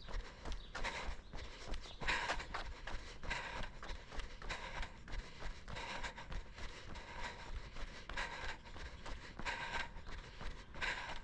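A jogger's footsteps on asphalt with heavy, rhythmic breathing, a loud breath roughly every second.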